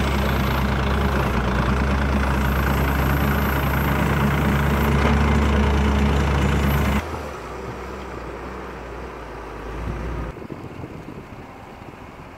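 Case 721F XR wheel loader's diesel engine running loud and steady, with a faint high whine over it. About seven seconds in the sound drops abruptly to a much quieter engine note, which fades to a faint background a few seconds later.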